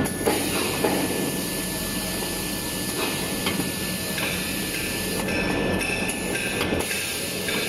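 Industrial roll paper band saw cutting machine running amid other factory machinery: a steady mechanical din with a constant high whine and a few short clicks and knocks.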